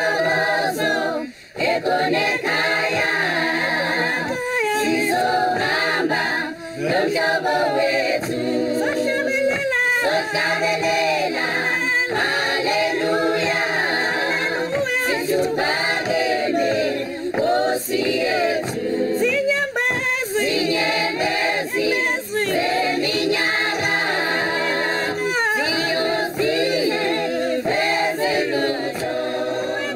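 A choir singing a cappella, several voices in harmony.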